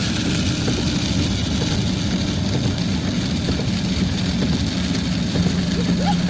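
Steady engine and road noise heard inside a moving car, a constant low drone with a rushing hiss over it.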